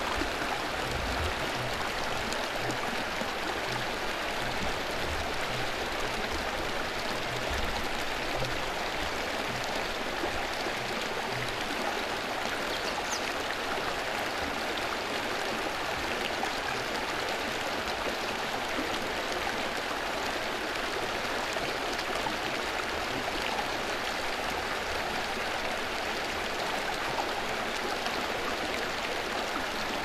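Steady rush and splash of water pouring from inlet pipes into concrete trout raceways, a continuous flowing-water sound without change. A few faint low bumps in the first ten seconds or so.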